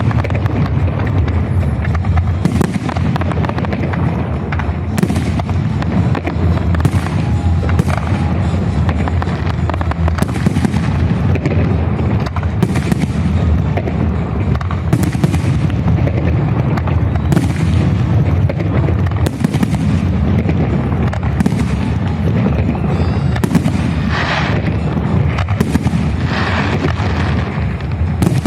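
Fireworks salute: aerial shells bursting in quick succession over a continuous deep rumble, with a sharp bang every second or two. Near the end come two longer crackling bursts.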